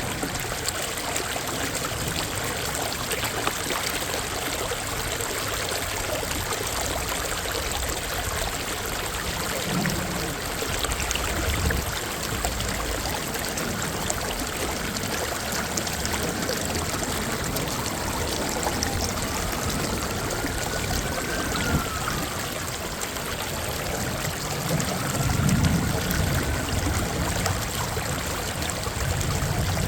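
Water of Minnehaha Creek and its falls running in a steady, even rush. Brief low rumbles come about ten seconds in and again near the end.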